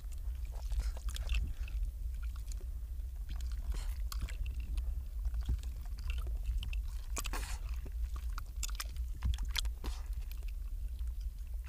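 Ringed seal pup at its breathing hole in the ice making wet smacking, splashing and crunching noises close to the microphone, as short irregular clicks with a denser burst about seven seconds in. A steady low rumble lies underneath.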